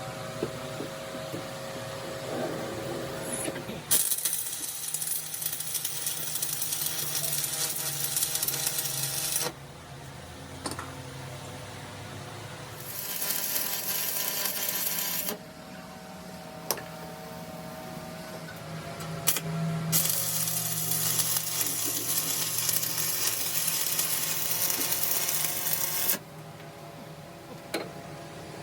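A power tool on metal running in three separate bursts of loud hissing noise, each lasting a few seconds and starting and stopping abruptly, with a low hum and a few sharp clicks and knocks in between.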